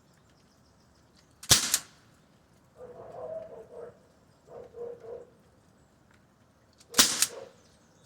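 Two shots from a Sig Sauer MCX CO2 air rifle in .177, about five and a half seconds apart, each a sharp pop followed by a second crack about a quarter second later. Fainter pitched sounds come in between.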